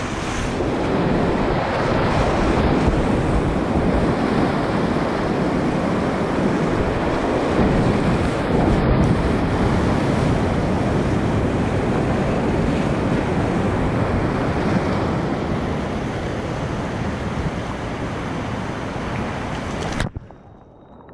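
Whitewater rapids rushing around a kayak: a loud, steady wash of churning water close to the microphone, which drops away suddenly near the end.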